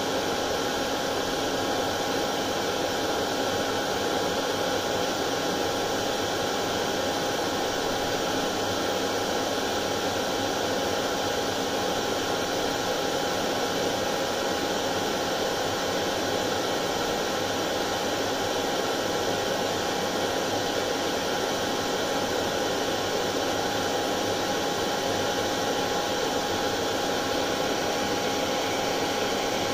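Hair dryer running continuously at a steady speed: an even rushing blow with a steady hum-tone over it, used as soothing white noise for colicky babies.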